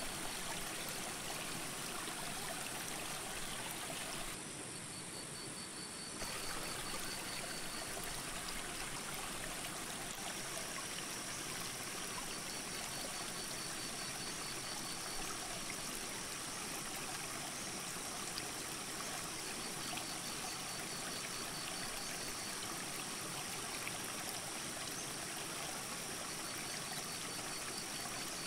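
Shallow mountain creek running over rocks, a steady rush of water that dips briefly about four seconds in.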